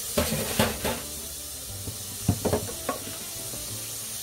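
Kitchen handling sounds: a few short knocks and clinks over a steady hiss, the loudest pair of knocks a little past halfway.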